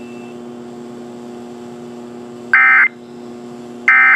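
Emergency Alert System end-of-message (EOM) data bursts: short, loud two-tone digital warbles, two of them about 1.3 s apart in the second half, marking the end of the alert message. A steady low hum runs underneath.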